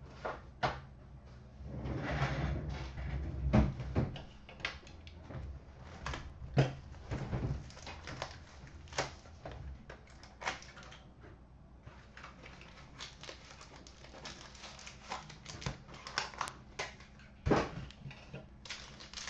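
Quiet handling noise as a hockey card box and its packs are opened by hand: scattered clicks and taps with a few brief rustles of cardboard and wrapper. A faint steady hum runs underneath.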